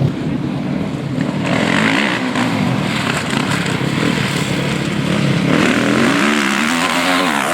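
Motocross bike engines racing on the track, revving up and down in pitch as the riders accelerate and shift, with swells as bikes come closer.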